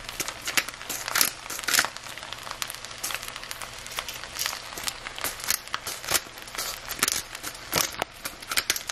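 Peppercorns being cracked in a new, stiff hand-twisted pepper grinder over a pan: a dense, irregular crackle of many small crunches.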